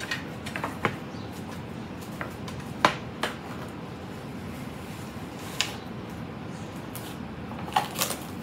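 Plastic cling wrap being pulled from its cardboard box and stretched over a sheet pan: scattered crinkles and sharp clicks, the loudest about three seconds in.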